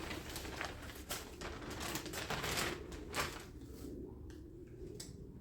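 Light rustling and irregular clicks of weatherstrip parts and their packaging being handled. The noises thin out and get quieter in the last couple of seconds.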